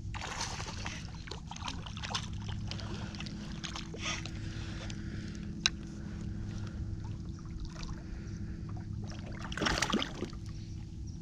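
Small knocks, clicks and water sounds around a fishing kayak over a steady low hum, with a louder rush of noise about ten seconds in.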